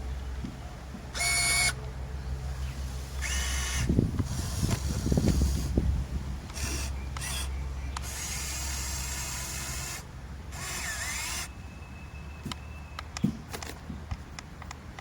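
Huina 1570 remote-control toy excavator's electric motors and gearboxes whirring in short separate bursts as it moves its arm and bucket. A louder stretch of rough scraping and knocking comes around the middle, and light clicks near the end.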